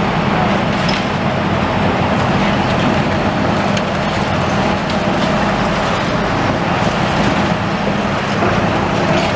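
Hydraulic demolition excavators working: a steady diesel engine drone with a few faint knocks as concrete is crushed.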